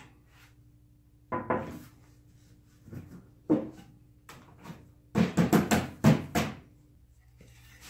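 Wooden knocks and bumps as a shop-cart case with pegboard side panels is handled and stood up on a workbench: single knocks about one and a half and three and a half seconds in, then a quick run of several knocks between five and six and a half seconds in.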